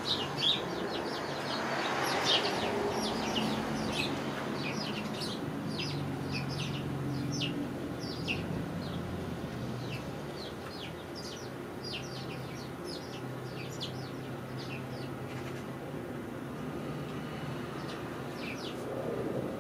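A flock of sparrows chirping, many short overlapping chirps that thin out toward the end.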